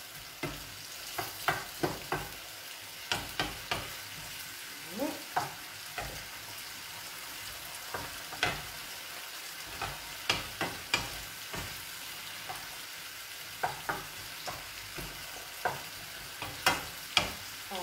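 Strips of chard stalk frying in a pan with tomato, a steady sizzle, while a wooden spoon stirs them and knocks and scrapes against the pan at irregular moments.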